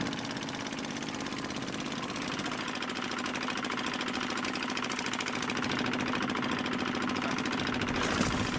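Boat engine running steadily, a constant drone with a fast even pulse, with a short sharp knock just after eight seconds in.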